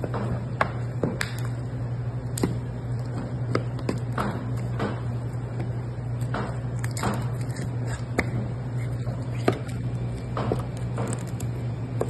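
Boning knife clicking and tapping on a plastic cutting board at irregular intervals while chicken legs are deboned, over a steady low hum.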